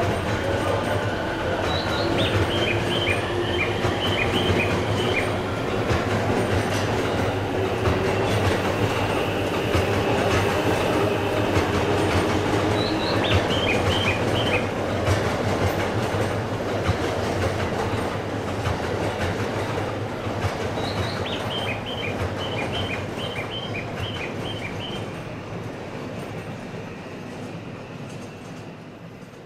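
Shinkansen train running on the tracks as it pulls away, a steady rumble of wheels on rail and points that slowly fades.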